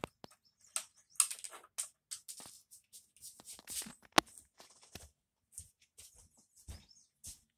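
Small plastic Lego pieces being handled, giving scattered short rustles and clicks, with one sharp click about four seconds in.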